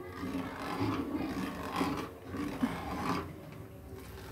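Steel ladle stirring and scraping through milk in a steel kadai, over the steady rush of a gas burner on high flame. The milk is being heated with alum added to split it.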